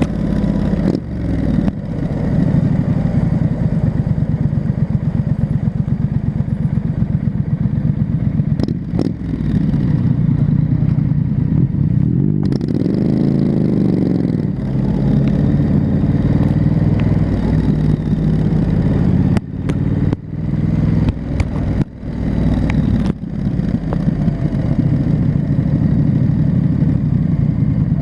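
2019 Triumph Street Scrambler's 900 cc parallel-twin engine running through its stock exhaust while riding. The engine pulses steadily, its pitch rises and falls once about halfway through, and the throttle briefly closes several times in the later part, as at gear changes.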